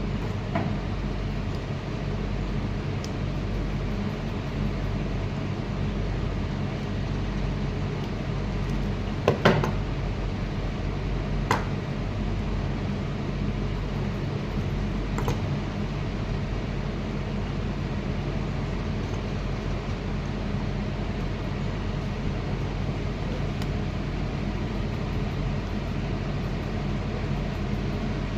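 A steady low mechanical hum, with a few sharp clicks about nine, eleven and fifteen seconds in.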